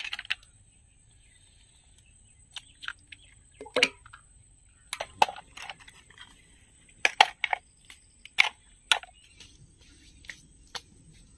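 Irregular sharp clicks and knocks of hard objects, about a dozen, over a faint steady high-pitched tone.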